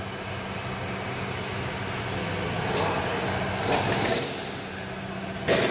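Workshop background with a steady low hum and intermittent handling noise as a mechanic works on a car's underbody, and a short, loud burst of noise near the end.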